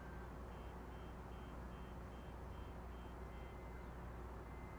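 Eight short, high electronic beeps, about two a second, over a steady low hum.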